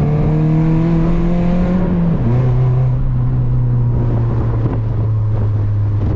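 Toyota Corolla's four-cylinder engine pulling in gear, its pitch climbing slightly, then about two seconds in the revs drop sharply as the manual gearbox is shifted up. The engine then runs steadily at the lower revs.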